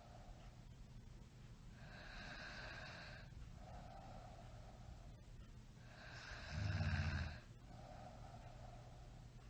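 Someone snoring in sleep: slow, raspy breaths that come every second or two, and one loud, deep snore about six and a half seconds in.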